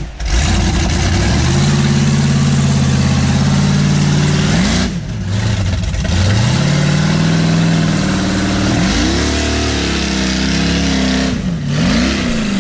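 Engine of a 1000-plus-horsepower off-road rock buggy revving hard as it climbs a steep muddy trail. The revs fall and rise again about five seconds in, then rise and fall several times near the end.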